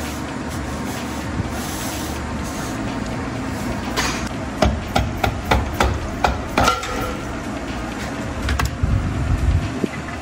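A hammer knocking on the cast aluminium case of a Tesla rear drive unit to break the end-cover half free. About ten sharp knocks come in quick succession starting about four seconds in, followed by a few duller knocks near the end as the half loosens.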